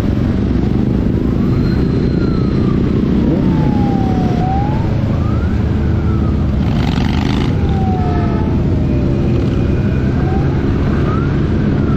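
A siren wailing, its pitch sliding up and down every couple of seconds, over a steady rumble of motor and road noise.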